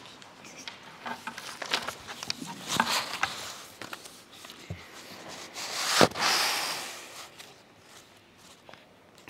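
Footsteps and small knocks and rustles of someone arriving at a lectern microphone, then a loud thump about six seconds in, followed by a second or so of rustling before it goes quieter.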